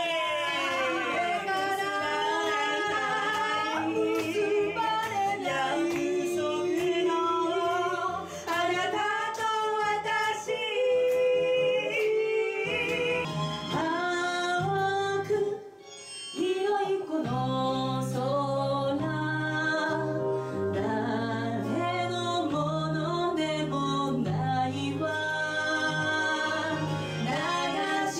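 A vocal group, women's voices leading, sings a pop song in close harmony into microphones, with low held keyboard notes underneath in the second half. About halfway through the singing drops out briefly and a different song begins.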